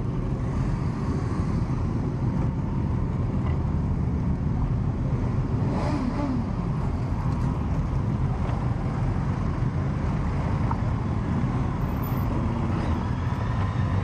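A procession of motorcycles riding slowly past, many engines running together in a steady low drone.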